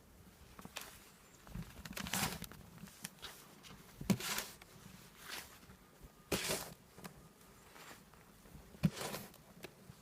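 Footsteps crunching through deep fresh snow: slow, heavy steps, one about every two seconds.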